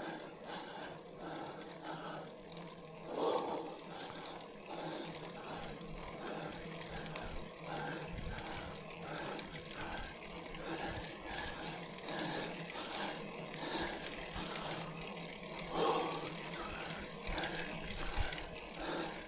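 A cyclist breathing hard and rhythmically while climbing a steep grade, with two louder, heavier breaths about three seconds in and again near the end.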